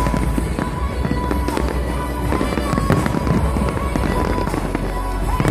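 Dense barrage of aerial firework shells bursting and crackling in quick, irregular succession, with music underneath.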